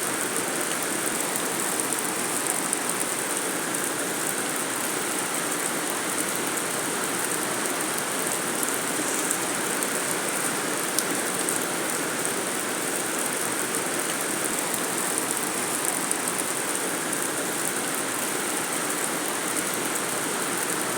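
Steady rain falling on a metal sheet roof: an even, unbroken hiss of many drops at a constant level.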